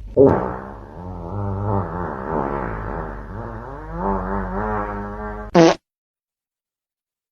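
A long fart sound effect, its pitch wobbling up and down for about five and a half seconds, with a loud blast at the start and another just before it cuts off suddenly.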